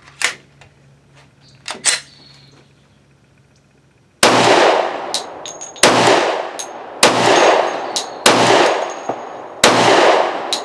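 Five shots from a Glock 20 pistol in 10mm Auto firing 170-grain PPU rounds, roughly one every second and a quarter, each with a long echoing tail. Two sharp clicks come first, and faint metallic clinks follow between shots. The pistol feeds and fires every round without a malfunction.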